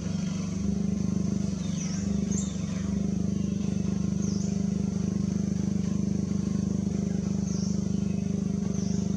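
A motor engine running steadily with a low, even hum, together with short high chirps that repeat every second or two.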